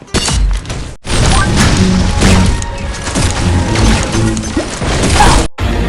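Loud music mixed with crashing, smashing impacts, broken by two abrupt cuts, about a second in and near the end.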